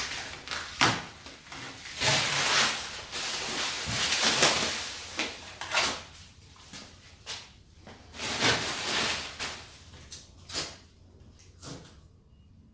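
Masking tape and masking paper being pulled and peeled off freshly painted car bodywork: repeated rustling, crackling and tearing. It is dense for the first half and thins out to occasional rustles near the end.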